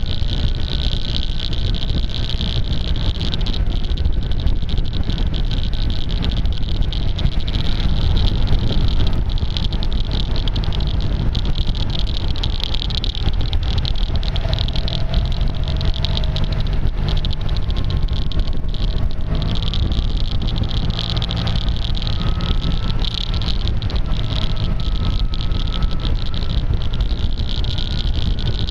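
Wind rushing over a motorcycle-mounted camera's taped-over microphone, with a constant crackle of clicking that the tape makes. Underneath, a faint engine whine slowly rises in pitch as the bike rides along.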